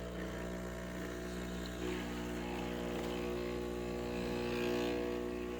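Sur la Table dual boiler espresso machine's pump running with a steady hum while a double shot of espresso brews.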